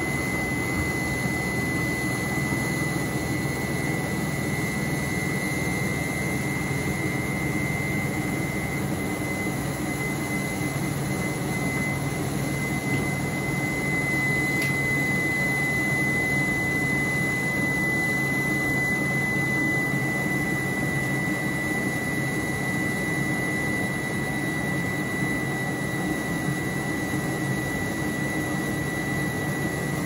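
Indesit 6 kg front-loading washing machine spinning its drum with water still inside: water churning against the door glass over a steady motor hum with a high whine.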